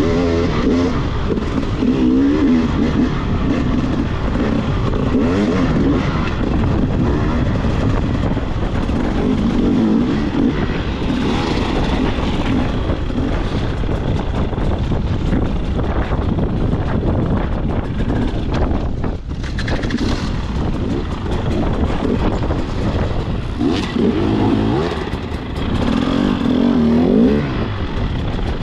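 Enduro motorcycle engine revving up and down as it is ridden, its pitch rising and falling again and again.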